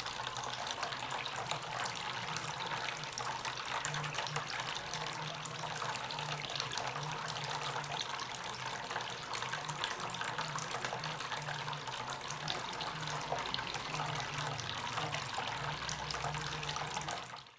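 Water from a homemade fake-wood fountain, pushed by a small submersible pump, falling and splashing steadily into its basin, with a low hum underneath that comes and goes. It fades out at the very end.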